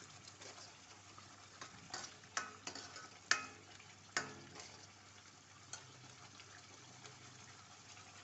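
Spiced curd-and-onion gravy cooking in a pan with a faint sizzle, while a spoon stirs it and knocks against the pan about half a dozen times, some knocks ringing briefly. The gravy is being cooked until the oil rises to the top.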